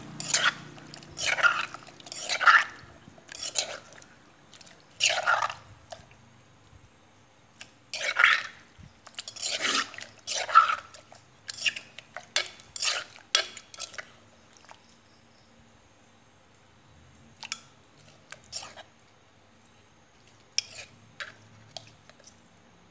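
Metal spoon stirring raw shrimp in a fish-sauce, chili and garlic dressing in a clay mortar: short wet sloshing strokes, one after another for about the first 14 seconds, then only a few scattered ones near the end.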